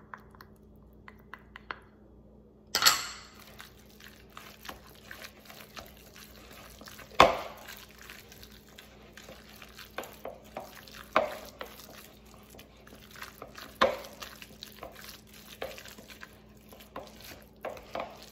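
Wooden spoon stirring and scraping thick chicken salad around a glass mixing bowl, with light taps at first and a few sharp knocks of the spoon against the glass every few seconds.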